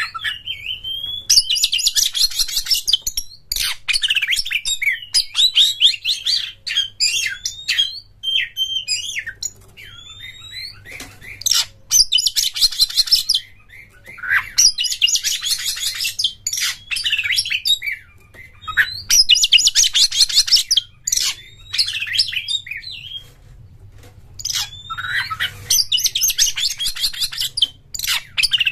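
Oriental magpie-robin (kacer) singing: short whistled slurs alternating with loud, rapid, buzzing rattles of about two seconds each, five of them. This is the chattering 'konslet' phrase of an excited bird.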